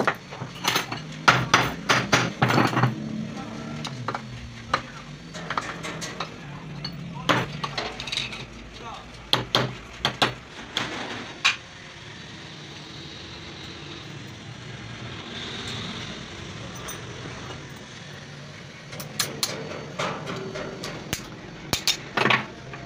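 Metal tools and gearbox parts clinking and knocking against each other, in irregular clusters through the first half and again near the end.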